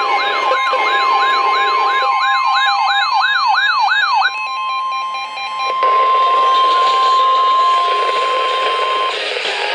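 NOAA Weather Radio 1050 Hz warning alarm tone, a steady single tone that stops about nine seconds in and signals that a warning follows. For the first four seconds or so a fast electronic siren wail rises and falls over it about three times a second. A few seconds later a hiss of radio static joins in.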